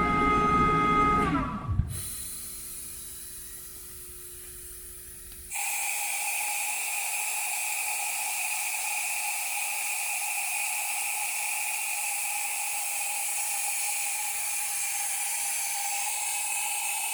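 Ingersoll Rand screw air compressor running with a high whine that falls in pitch and winds down about a second and a half in. A few seconds later a steady air hiss starts abruptly and keeps going.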